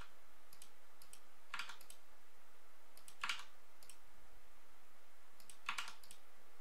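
Scattered clicks of a computer mouse and keyboard, some in quick pairs, as keyboard shortcuts (Ctrl+R) are pressed and clicks place loop cuts on a 3D model, over a steady faint microphone hiss.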